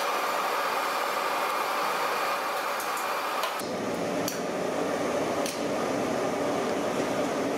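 Steady kitchen noise with a few light metal clicks and clinks as a whole chicken on an iron skewer is handled and lowered into a tandoor. The background noise changes abruptly about three and a half seconds in.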